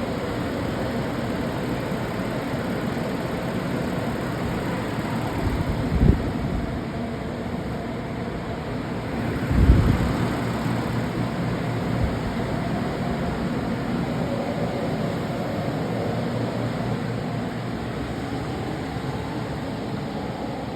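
Dehumidifiers and air movers running steadily, a constant fan noise with a low hum, drying out flood-damaged carpet and drywall. Two short low thumps cut in, about six and ten seconds in, the second the louder.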